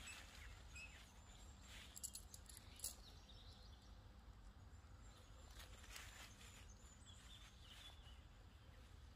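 Near silence: faint outdoor ambience with a few soft clicks and rustles, the clearest two about two and three seconds in.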